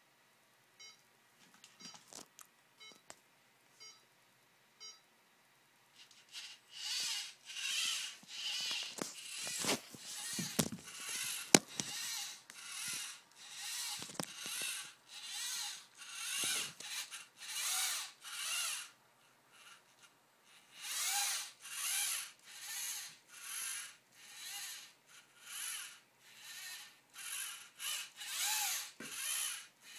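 Geared drive motors of a self-balancing robot whirring in short bursts, about one to two a second, as the wheels drive back and forth to keep it upright. A few light clicks come before the whirring starts, about six seconds in.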